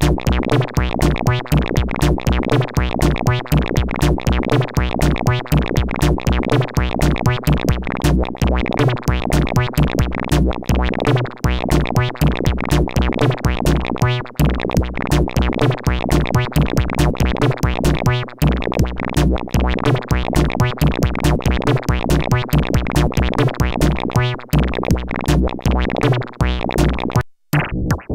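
Experimental electronic music: a fast, steady electronic beat over sustained synthesizer and bass tones, briefly cutting out near the end.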